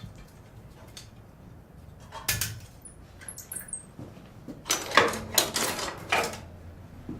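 Irregular metal clanks and clinks of blacksmith's tools and iron being handled: one clank, a few short high rings, then a quick cluster of louder clanks.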